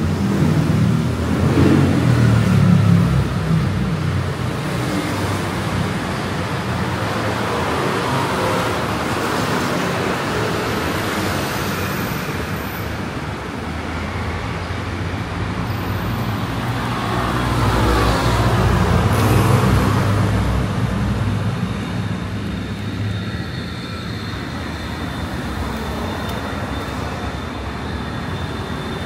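Road traffic on a wide city road running continuously, with vehicles passing close and swelling louder about two seconds in and again around eighteen to twenty seconds in.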